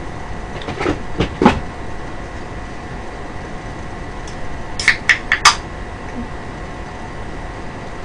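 A drink can being handled and opened: a few knocks about a second in, then a quick run of sharp clicks about five seconds in as its pull tab is cracked open.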